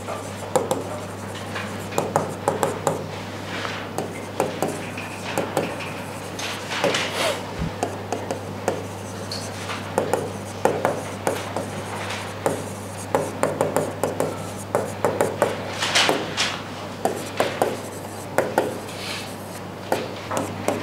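Handwriting: a writing tool making irregular taps and short scratching strokes throughout, over a steady low electrical hum.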